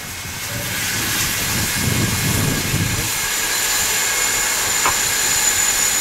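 Steady hiss of escaping steam from a two-foot gauge Ng15 steam locomotive, building up over the first second and then holding, with a single click near the end.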